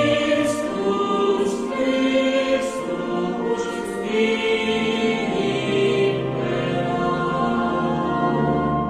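Choir singing slowly in held chords.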